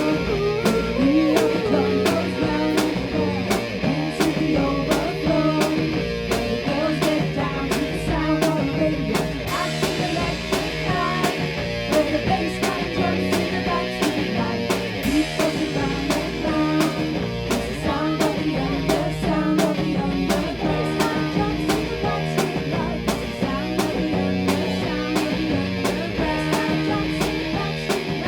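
A band playing rock music: guitars and a drum kit keeping a steady beat.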